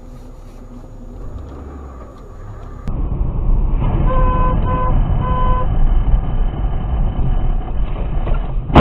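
Steady low road and engine noise from inside a moving car, louder from about three seconds in; a car horn sounds three short beeps about four seconds in. A sudden loud knock comes right at the end.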